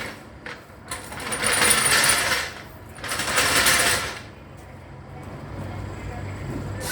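A pneumatic tool running in two bursts, each about a second or so long. A quieter steady low hum follows.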